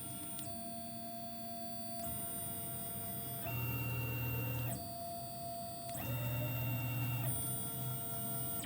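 Tormach 1100 CNC mill's axis drive motors whining steadily as the table and head jog at half jog speed, about 27 inches per minute. The pitch shifts in steps every second or two as the motion changes.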